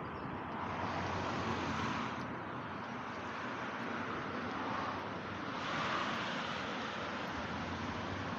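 Road traffic: cars driving past on the street alongside, a steady hiss that swells twice, about a second in and again around six seconds in, as vehicles pass.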